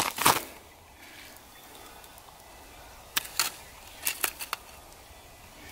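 Footsteps crunching in snow that stop half a second in, then quiet, then a handful of short sharp clicks and knocks about three to four and a half seconds in as an ice-fishing tip-up is gripped and lifted from its hole.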